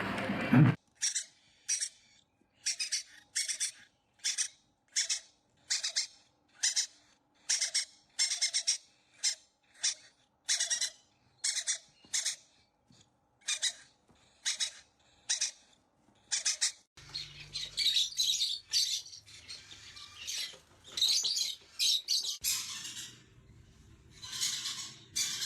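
Parrot giving short, high calls in an even series, about one and a half a second. About two-thirds of the way through they give way to a denser run of squawks and chatter.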